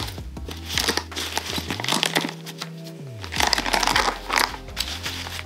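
Background music, with the crinkle of plastic protective film being peeled off a handbag's metal insignia.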